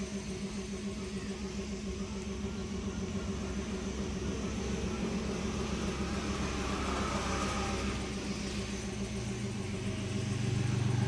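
A motor running with a steady, even hum; a deeper drone joins about nine seconds in.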